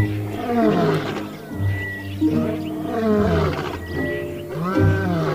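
A male lion roaring: repeated deep calls about a second and a half apart, each falling in pitch, over background music.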